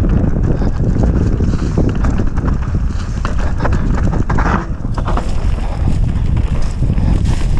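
Mountain bike ridden fast over a bumpy dirt singletrack: wind rushing over the microphone, with the tyres and bike rattling in a quick, uneven run of clicks and knocks.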